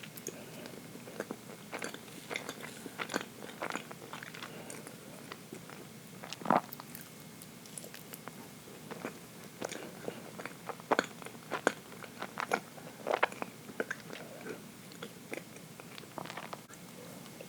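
Close-up chewing of dense chocolate cake: irregular wet mouth clicks and smacks, with one louder click about six and a half seconds in.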